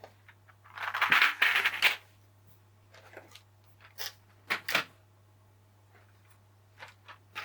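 Plastic clicks and clatter of keys on a mechanical keyboard fitted with silent linear switches: a burst of rapid clatter about a second in, then a few single clicks.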